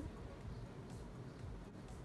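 Quiet room tone: a faint, steady hiss and low hum, with no distinct sounds standing out.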